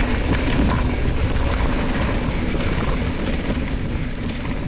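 Wind buffeting the microphone of a camera on a mountain bike riding downhill, with tyres rumbling and the bike chattering over the dirt trail in a steady, loud rush.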